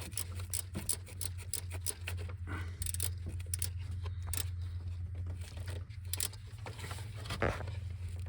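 Irregular metallic clinks and rattles of hand tools and metal parts being handled, over a steady low hum.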